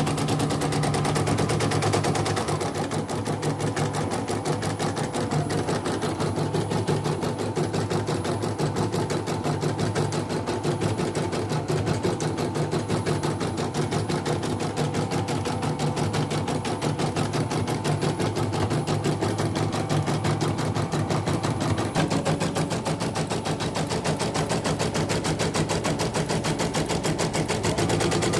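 CNY portable embroidery machine stitching at speed: the needle bar and hoop drive make a rapid, even mechanical clatter. Freshly serviced, it is running smoothly.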